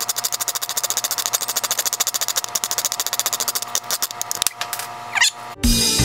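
A rapid, even mechanical clatter of many clicks a second over a steady hum, thinning out after about four seconds. A short rising sweep follows, and then music with guitar and drums starts near the end.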